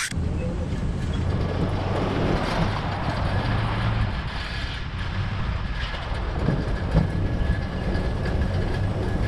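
Old dump truck driving along, its engine and drivetrain running with a steady low rumble, with knocks and rattles from the body and the load in the bed.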